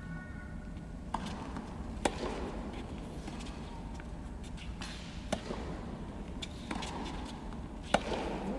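Tennis ball hit back and forth in a rally on a hard court: a series of sharp pops from racket strikes and bounces, spaced about a second apart, over the low hum of a hushed arena crowd.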